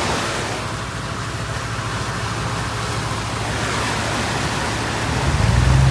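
A vehicle engine running with a steady low hum over the rushing of creek water as it tows a grain auger through the flooded creek; the engine grows louder near the end.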